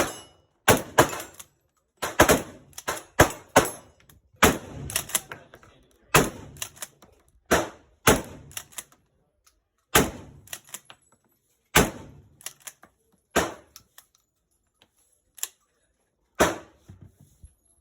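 A string of about twenty gunshots fired at an uneven pace, often two or three in quick succession with short pauses between. Each shot is followed by a brief ringing echo.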